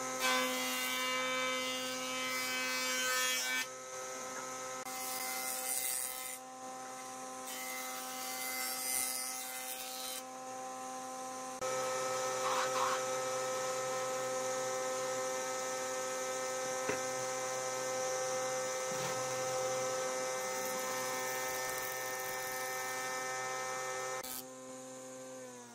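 Nisino thickness planer running with a steady, pitched hum. In the first ten seconds there are three spells of louder, rougher cutting noise as wood feeds through, and the sound jumps abruptly at several edits.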